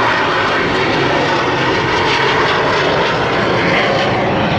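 Loud, steady jet engine noise of a Belgian Air Force F-16 fighter flying its display.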